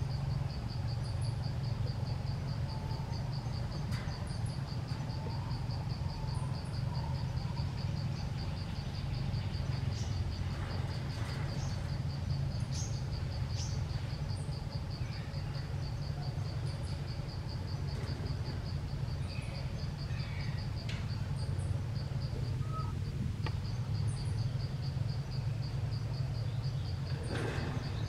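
An insect, cricket or cicada type, trilling steadily in an even, rapidly pulsing high tone over a low steady hum, with a few faint short bird chirps. There is a brief rustle near the end.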